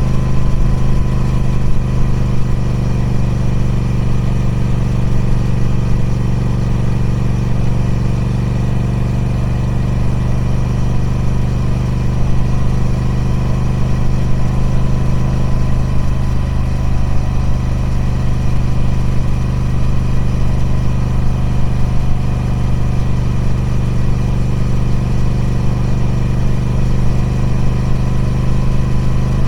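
Triumph Speed Twin 1200's 1200cc parallel-twin engine running through its stock exhaust at steady, unchanging revs.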